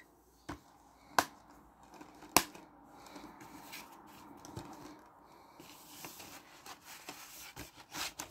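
Plastic Blu-ray case being closed and handled: a few sharp plastic clicks in the first couple of seconds, then faint rustling of the case and its cardboard slipcover, with more light clicks near the end.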